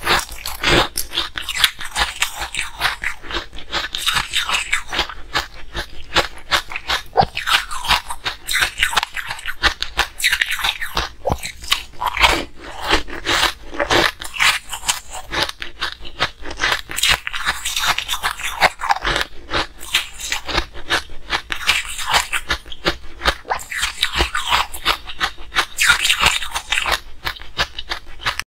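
Frozen ice balls being bitten and chewed, cracking and crunching between the teeth in quick, irregular bursts. Close-miked.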